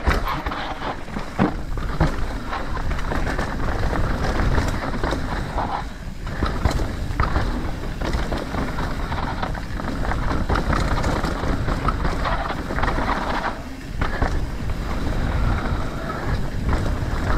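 Wind rushing over the camera microphone and a mountain bike's tyres rolling fast over a dry dirt trail, with many short knocks and rattles from the bike over bumps and rocks.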